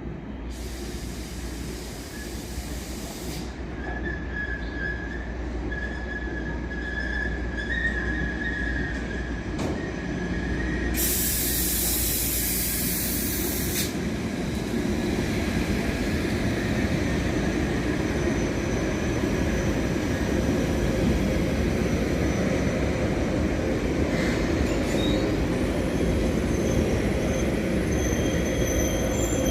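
Train running on the station tracks, growing louder, its wheels squealing on the rails: a steady high squeal from about four seconds in, a short hiss about halfway through, and thin high-pitched squeals near the end over a low rumble.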